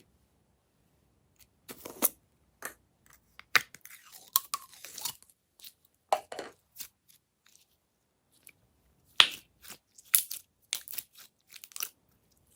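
Glossy slime being handled and mixed by hand, giving irregular sticky crackles and sharp clicks in short clusters with quiet gaps between.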